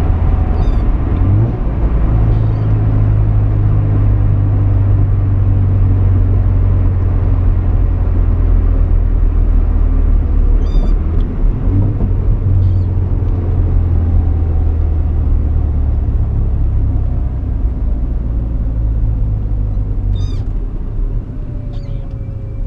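Mazda RX-7 GSL-SE's 13B rotary engine heard from inside the cabin while driving, a loud steady drone. Its note shifts about a second and a half in and again about twelve seconds in, then eases off over the last few seconds as the car slows.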